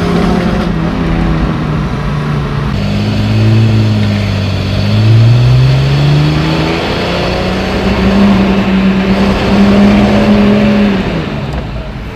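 1955 Mercedes-Benz Ponton 220a's straight-six engine heard from inside the cabin while driving. The engine note climbs as the car accelerates about halfway through, holds, then drops near the end.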